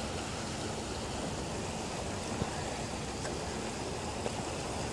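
Steady rush of flowing river water, with a couple of faint ticks.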